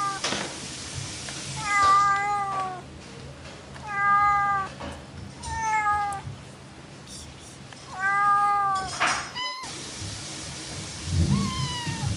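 Long-haired tabby cat meowing over and over: about five drawn-out meows roughly two seconds apart, each dipping slightly in pitch at the end. A short scratchy noise comes after the fourth meow, and the last call near the end is shorter.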